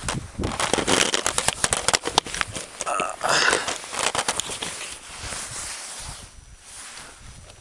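Camera handling noise: a dense run of knocks, scrapes and rustles on the microphone as the climber scrambles over rock, with a louder patch about three seconds in, easing off over the last couple of seconds.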